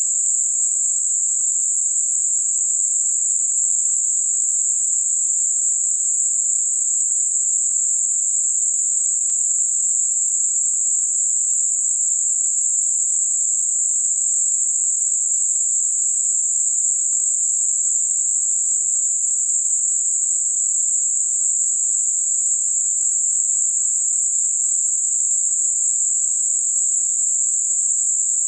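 Steady, high-pitched hiss of synthetic Gaussian narrowband noise centred on 7.5 kHz, fading off gently on either side, with nothing lower in pitch: masking noise for high-frequency tinnitus.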